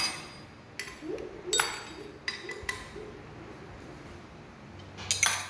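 Steel sockets from a socket wrench set clinking against each other and their case: a handful of sharp metallic clinks with a short ring, the loudest about a second and a half in, and a quick cluster near the end.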